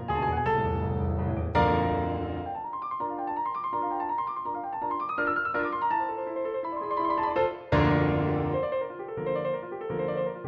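Background piano music: struck chords with a low bass, then a rising and falling run of single notes, and a fresh bass chord about eight seconds in.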